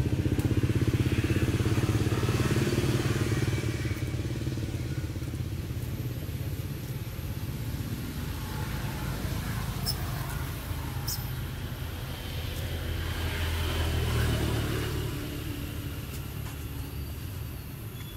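Low engine rumble of passing motor vehicles. It is strongest in the first few seconds, dies down, and swells again about fourteen seconds in. A couple of faint clicks come near the middle.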